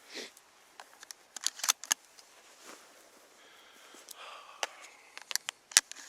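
Small sharp clicks and handling noise: a quick cluster of clicks about a second and a half in, and two sharper ones near the end.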